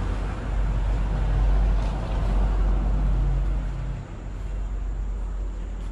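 Low rumble of a motor vehicle's engine running, swelling over the first few seconds and easing off about four seconds in.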